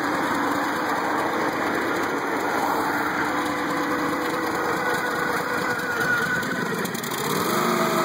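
Small engine of a towable backhoe running steadily. About seven seconds in, its note changes and settles into a smoother, steadier hum.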